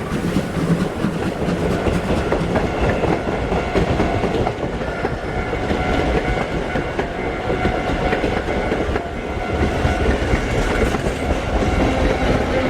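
A train on the Oigawa Railway main line passing over a level crossing, its wheels clattering over the rails. The sound stays loud and steady throughout.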